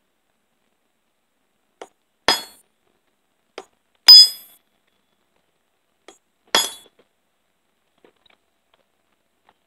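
Ball-peen hammer blows on steel while peening the rivets of a chainsaw chain's tie strap. Three sharp, ringing metal clinks about two seconds apart, each preceded by a light tap; the middle blow is the loudest.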